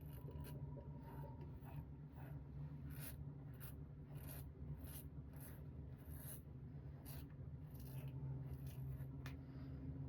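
Safety razor blade cutting through lathered stubble in short repeated strokes, about one and a half strokes a second, over a faint steady low hum.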